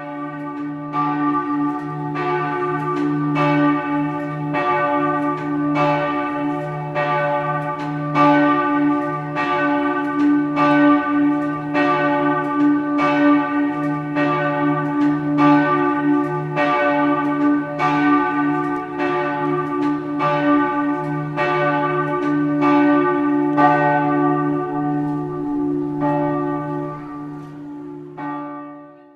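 Church bells heard close up, tolling with a steady strike about once a second. Each stroke rings with bright overtones over a deep hum that carries on between strokes; the strokes stop near the end and the ringing dies away.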